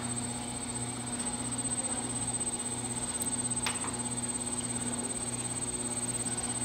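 Electric potter's wheel spinning, its motor giving a steady low hum, with one faint click about three and a half seconds in.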